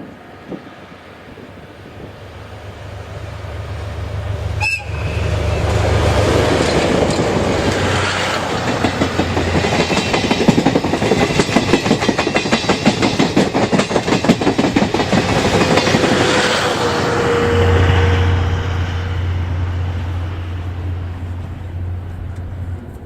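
DE10 diesel-hydraulic locomotive approaching and passing with its engine droning, followed by a quick run of wheels clattering over rail joints as the train goes by. The engine drone comes back strongly near the end and then eases off.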